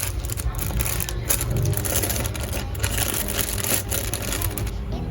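Packaging being handled and crumpled, giving a dense run of irregular crackles and crinkles.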